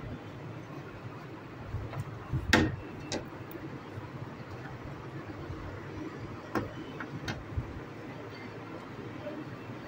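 A slotted spoon clinking and knocking against an aluminium stockpot while chicken pieces are fished out of the broth: a handful of sharp knocks in two clusters, the loudest about two and a half seconds in, the others between about six and a half and seven and a half seconds, over a steady low hum.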